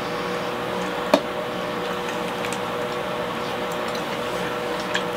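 Room tone: a steady hum with a faint held tone, broken by one sharp click about a second in and a few faint clicks near the end.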